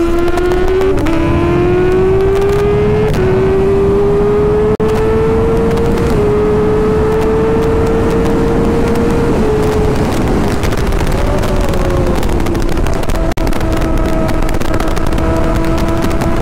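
Kawasaki Ninja ZX-6R 636 cc inline-four at hard throttle. Its pitch climbs and drops back with upshifts about one, three and six seconds in, then holds high and falls slowly as the rider eases off. Heavy wind rush on the microphone at high speed runs under it.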